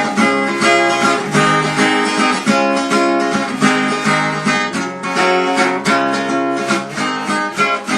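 Acoustic guitar strummed in a rhythmic chord pattern, playing the instrumental introduction to a song.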